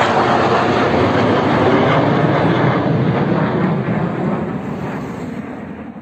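Su-57 Felon jet fighter flying low overhead, its engines making a loud, howling roar that dies away over the last two seconds as the aircraft passes.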